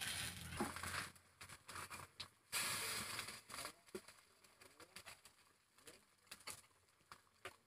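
Metal utensil scraping and clicking against a cast-iron dimpled cake pan as small cakes are pried out: scratchy scraping in the first few seconds, then a few sharp clicks. Birds call softly and repeatedly in the background during the second half.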